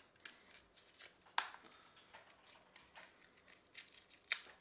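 Kitchen knife drawn along a honing steel: a series of light metallic scraping strokes, the two loudest about a second and a half in and near the end, the first with a short ring.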